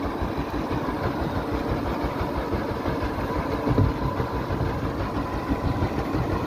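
Fishing boat engine idling steadily with a low, rapid chugging.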